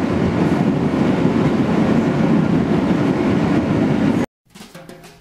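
Passenger train in motion, heard from inside the car: a steady, loud rumble of wheels on rail. It cuts off abruptly about four seconds in.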